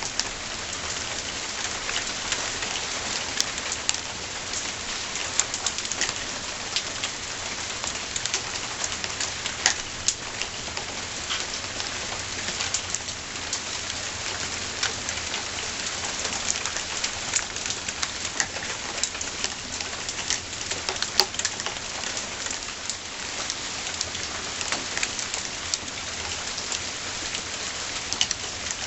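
Steady rain pattering on a surface, a continuous hiss full of small individual drop impacts.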